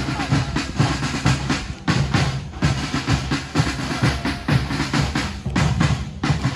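Drum-led music: bass and snare drums beating a steady rhythm, a few hits a second.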